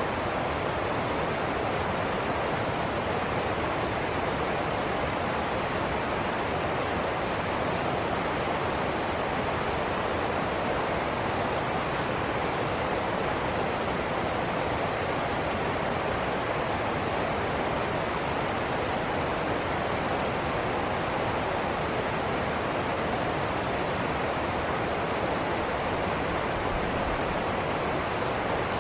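River rapids: water rushing over rocks and small cascades in a steady, unbroken white-water rush.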